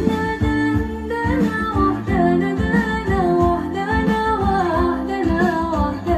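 A song with guitar and a wavering singing voice, played back loud through a home-built SOCL 504 power amplifier under a sound test.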